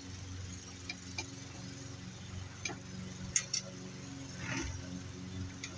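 Lawn mower engine running steadily in the background, with a few sharp clicks and a brief scrape about four and a half seconds in from metal light-fixture parts being handled.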